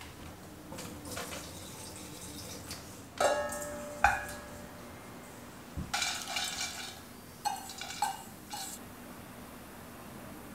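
Metal kitchenware clinks twice with a short ring. Then comes a dry rattle of grains poured from a stainless steel pot into an enamelled cast-iron pot, followed by a few light knocks as more ingredients drop in.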